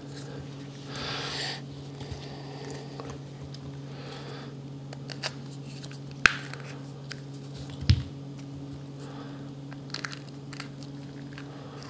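Soft handling noise of wires being pushed through a trolling motor receptacle's rubber seal and its plastic parts being turned in the hands: light rustling and a few small clicks and knocks, over a steady low hum.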